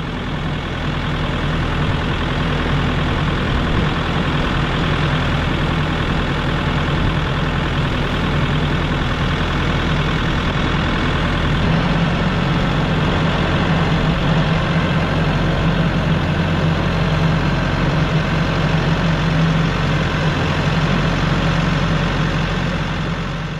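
Kioti RX7320 tractor's diesel engine running steadily, fading in over the first two seconds.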